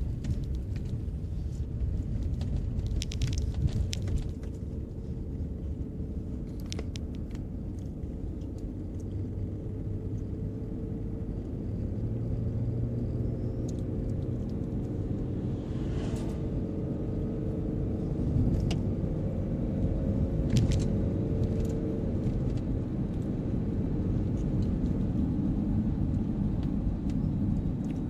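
Car driving, heard from inside the cabin: a steady low rumble of engine and tyres, first on a gravel road and then on pavement. A cluster of sharp ticks comes about three to four seconds in, and a brief whoosh about sixteen seconds in, as an oncoming dump truck passes.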